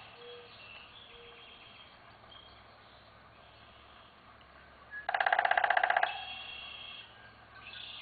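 A woodpecker calling once with a loud, fast rattle of about a dozen notes a second, lasting about a second, a little past the middle. Faint short calls of other birds sound around it.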